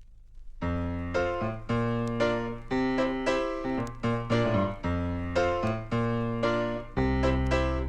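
Near silence, then about half a second in a piano starts playing chords struck in a steady rhythm, each ringing and dying away, as the instrumental introduction to a gospel song.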